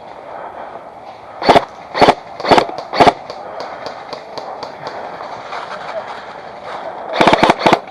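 Airsoft gun fired close by: four single shots about half a second apart, then a rapid string of four or five shots near the end, with softer clicks and rustling in between.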